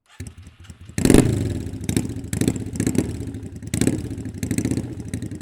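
Motorcycle being started: a brief stretch of starter cranking, then the engine catches about a second in, is blipped several times on the throttle and settles into an even idle.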